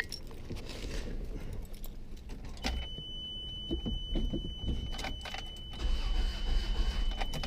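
Keys jangling at the ignition, a steady high tone coming on about three seconds in, then a 1989 Toyota Tercel's 1.5-litre 12-valve engine turning over on the starter near the end without catching, the car's no-start fault.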